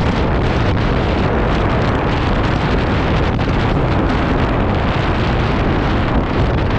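Wind buffeting the microphone, loud and steady, as on a ride along a road; any engine is buried under it.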